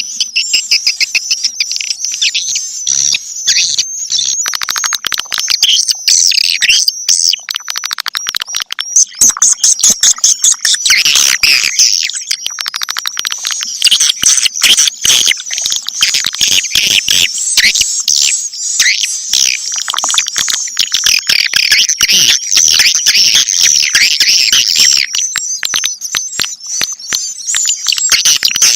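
Swiftlets twittering in a dense, unbroken chorus of quick high chirps and rapid clicks: a swiftlet calling sound of the kind played to lure swiftlets into a nesting house.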